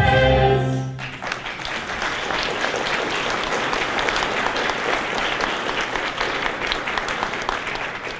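The musical number's final held chord cuts off about a second in, and the audience then applauds steadily.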